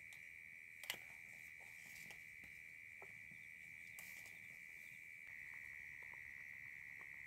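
Steady high trilling of night insects, with faint clicks of a small knife slicing cherry tomatoes over a steel plate, the sharpest about a second in. Near the end, faint small ticks as a spoon stirs macaroni boiling in a steel pot.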